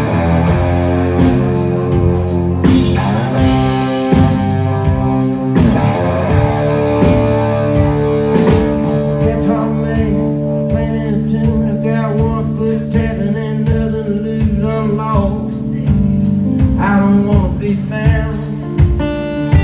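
Live country-rock band playing an instrumental break: guitar over a steady bass and drum beat, with bending, wavering lead notes in the second half.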